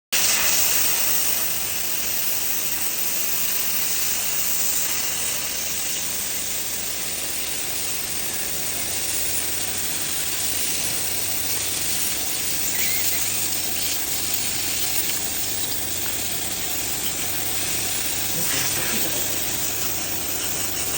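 300 W pulsed laser cleaner ablating a wood surface: a steady, high hiss that holds at one level throughout.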